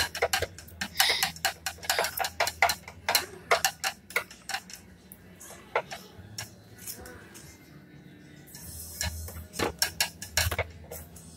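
A thin wooden stick stirring water in a small tank, knocking against its sides in irregular clicks and taps, sparser for a few seconds in the middle. The stirring dissolves water-prep powder into the water.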